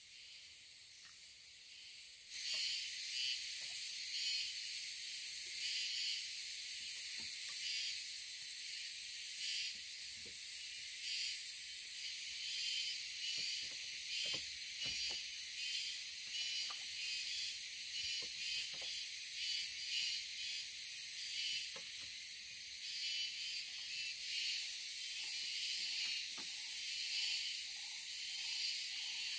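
Steady high-pitched chorus of forest insects with a pulsing shimmer, growing louder about two seconds in, with faint knocks and taps of split bamboo being handled and fitted.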